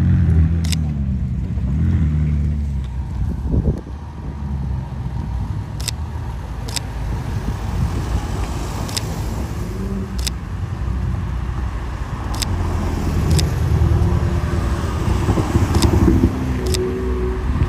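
Cars pulling away one after another, engines rising in pitch as they accelerate: first a McLaren 600LT's twin-turbo V8 in the opening seconds, then a line of cars driving past, accelerating again near the end. Sharp clicks come now and then.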